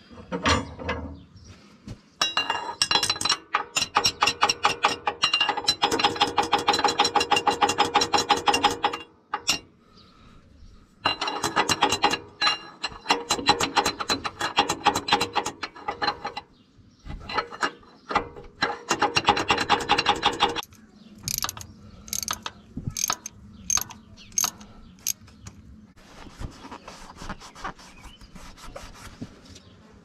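Hammer tapping quickly on a thin tin cover, several ringing metallic taps a second, to drive a hydraulic seal down into its seat on a Gehl 4625 skid steer. The taps come in three long runs with short pauses between, then slow to a handful of separate, sharper blows a little past the middle.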